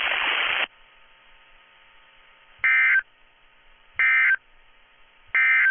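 Radio static hiss that cuts off suddenly under a second in, then three short, identical bursts of data tones about 1.4 seconds apart. These are the NOAA Weather Radio SAME end-of-message code, sent three times to close the alert test.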